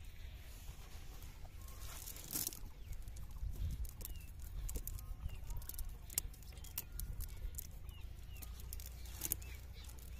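Soft rustling and small clicks of a cast net being handled on sand while the catch is picked out of its mesh, with short bird calls, like chickens clucking, in the background.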